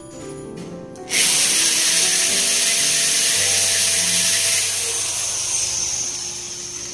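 Electric drill with a 3/8-inch masonry bit boring a hole into the wall. It starts suddenly about a second in, runs steadily and loud for about three and a half seconds, then eases off and fades near the end. Background music plays underneath.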